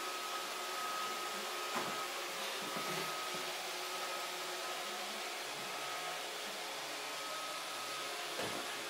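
iRobot robot vacuum running on a parquet floor: a steady whirring noise with a thin, high steady tone over it. A brief knock comes about two seconds in and again near the end.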